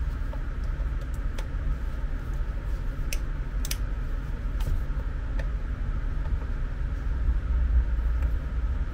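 Steady low hum with a few sharp clicks about three to five seconds in, as a handheld tester is tried on the bed's linear actuator. The actuator motor does not run; the repairer suspects the tester's battery is flat.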